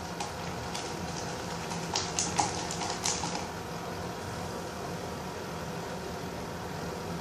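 Sticky glue-and-laundry-detergent slime being kneaded and squished by hand: a quick run of wet, crackling squelches over the first three seconds or so, loudest around the middle, over a steady background hum.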